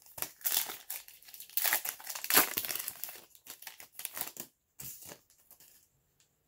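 Foil wrapper of a 2020 Bowman baseball card pack being torn open and crinkled, a dense crackle that dies away after about four and a half seconds into a few last rustles.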